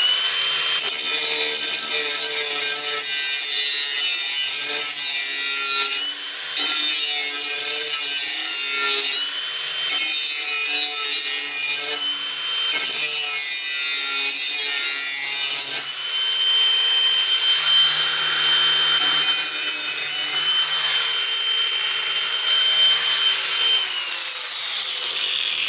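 Angle grinder with a Diablo metal-grinding disc sharpening the edge of a steel lawnmower blade: a steady motor whine over harsh grinding noise, with a few brief dips as the disc eases off the metal. The motor winds down near the end.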